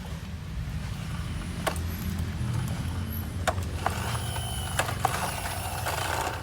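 Plastic toy excavator being handled and worked: a handful of sharp plastic clicks and knocks over a low steady hum, with a louder rasping, grinding noise in the last two seconds.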